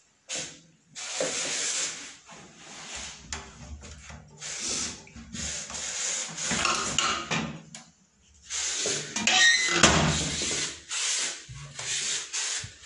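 Close, irregular rubbing and scraping noises in bursts of a second or two, with a short break about eight seconds in.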